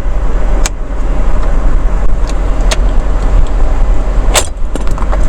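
Steady loud rushing noise with a low hum, broken by three sharp plastic clicks as the overhead console's light and sunroof switch trim is pried at.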